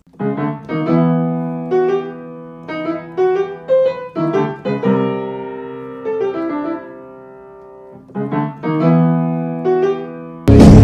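Background piano music: single notes and chords that ring and fade, with a lull of long-decaying notes midway. Near the end it is cut off by a sudden loud burst of noise.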